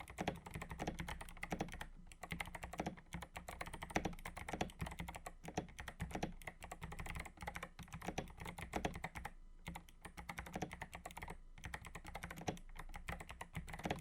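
Fast typing on the 8BitDo Retro Mechanical Keyboard, a rapid run of mechanical key clicks with a couple of short pauses.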